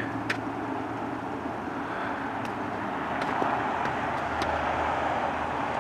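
Steady low rumble of distant vehicles in the open air, with a deeper hum that grows about four seconds in.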